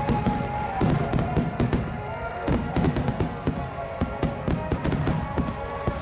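Aerial firework shells bursting in a rapid barrage, many booms and crackles in quick succession, over loudspeaker music.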